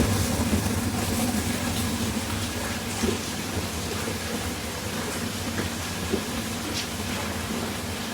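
Steady low mechanical hum, like a motor or engine running, with a couple of faint clicks.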